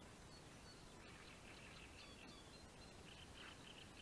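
Near silence: quiet outdoor ambience with faint, short, high bird chirps scattered through it.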